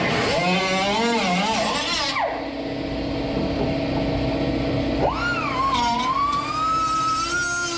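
A power tool with a cut-off wheel cuts into car-body sheet metal, its pitch wavering under load, then winds down about two seconds in. About five seconds in it spins up again with a sharply rising whine and runs at a steady high pitch.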